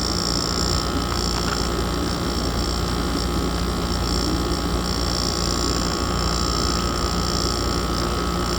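A 2006 Amana air conditioner running, heard from the outside of the unit: a steady hum from the compressor and condenser fan, with a constant higher whine over it.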